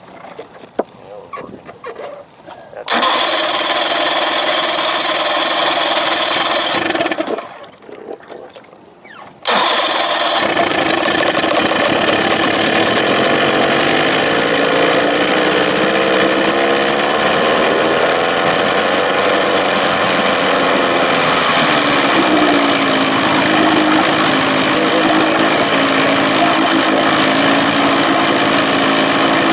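Johnson 25 hp two-stroke outboard motor starting and running for a few seconds, stopping, then starting again and running on. Its speed wanders up and down before settling to a steady run.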